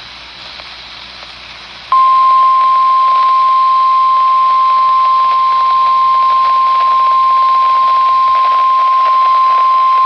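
NOAA Weather Radio 1050 Hz warning alarm tone heard on a RadioShack 12-254 weather radio: after about two seconds of quieter receiver hiss, one steady, loud single-pitch tone starts and holds. It marks the alert before a severe thunderstorm warning is read.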